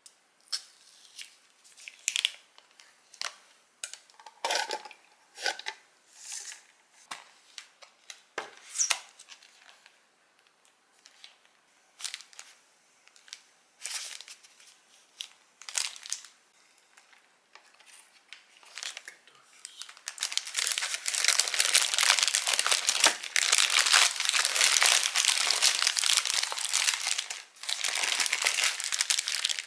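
Paper takeaway food packaging being handled, with scattered short rustles and crinkles. From about twenty seconds in comes a long stretch of loud, continuous crinkling as a burger's paper wrapper is opened.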